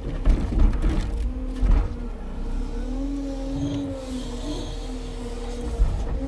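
Timber truck's engine running at raised revs to drive the log crane's hydraulics: a steady drone that rises slightly in pitch around the middle. A few sharp knocks come in the first two seconds.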